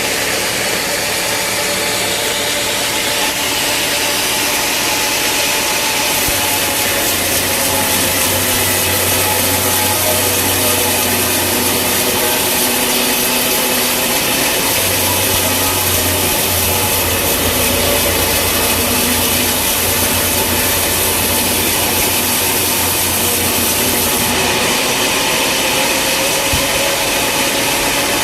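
Sawmill saw cutting through wood: a loud, steady sawing noise whose hissing high edge grows stronger from about six seconds in and drops back a few seconds before the end.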